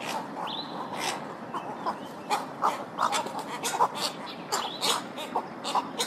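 Cattle egrets calling: many short calls in quick, irregular succession over a steady background hiss.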